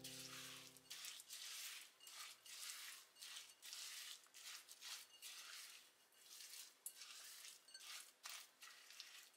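Silicone spatula stirring and folding rolled oats and walnuts into cookie dough in a glass bowl: faint scraping, crunching strokes, about two a second.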